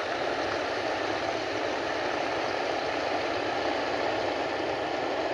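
Propeller aircraft engine droning steadily at a constant pitch.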